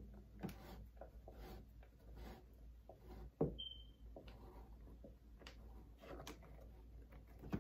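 A flat shoelace being threaded and pulled through a sneaker's eyelets by hand: faint rubbing and scattered light clicks, with a sharper click about three and a half seconds in, followed by a brief high squeak.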